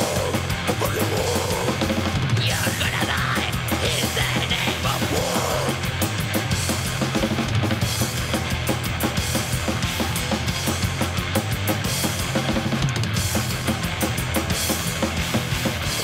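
Blackened thrash/death metal band playing: drum kit with distorted guitars and bass guitar, with harsh vocals over the first few seconds.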